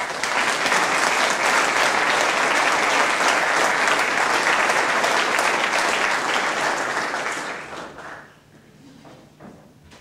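Audience applauding, starting all at once and dying away after about eight seconds.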